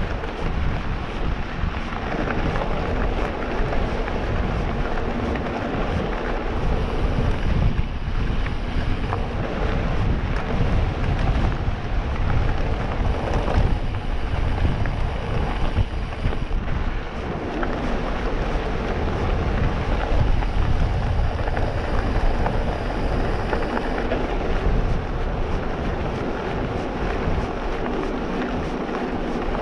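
Wind buffeting the microphone and tyres rumbling over a rough track while an e-mountain bike is ridden, a continuous noisy rush with no clear tone.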